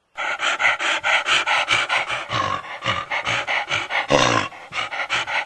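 Cartoon dog panting rapidly and rhythmically, about four to five breaths a second, with one longer, heavier breath just after four seconds.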